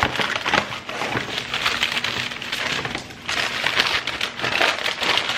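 Shopping bag rustling and crinkling as items are pulled out of it, in two long stretches with a short pause about three seconds in.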